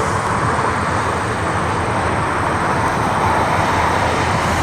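Steady, loud aircraft engine noise with no breaks.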